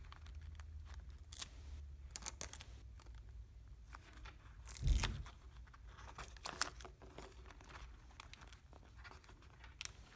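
Clear tape being pulled and torn, with paper crinkling and light handling clicks. One louder bump about five seconds in.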